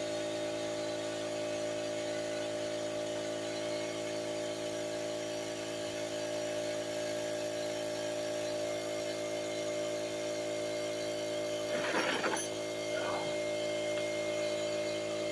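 Steady mechanical hum made of several fixed tones, with two short bursts of noise about twelve and thirteen seconds in.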